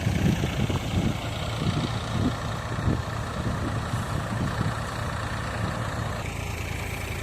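A heavy engine running steadily, with irregular low rumbles over it in the first few seconds.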